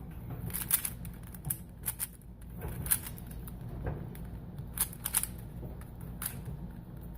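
A YJ Yulong 3x3 speedcube being turned quickly during a solve: a fast, irregular run of light plastic clicks as its layers turn and snap into place.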